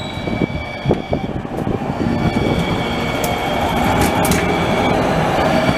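New Jersey Transit light rail car running past close by, its wheels rumbling on the rails, growing louder about two seconds in. Steady high-pitched whining tones run over it, with a few sharp clicks around three to four seconds in.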